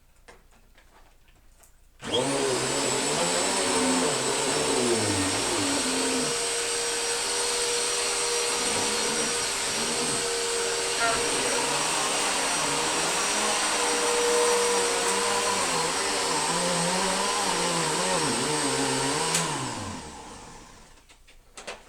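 Bissell PowerForce Rewind Pet upright vacuum cleaner switched on about two seconds in, running loud and steady with a high whine, its low hum rising and falling again and again. It is switched off near the end and winds down.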